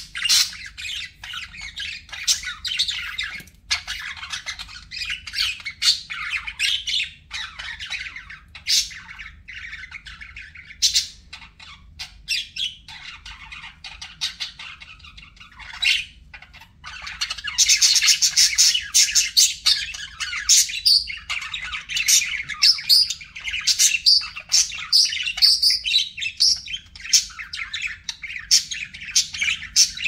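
Budgerigars chattering: a dense, unbroken stream of quick chirps, warbles and squawks, growing busier and louder a little past halfway.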